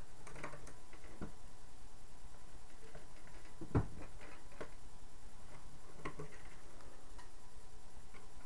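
Small clicks and scrapes of hands and a tool working on a Crosman Marksman Repeater BB pistol, taking out the screws that hold its frame together, with one louder knock about four seconds in.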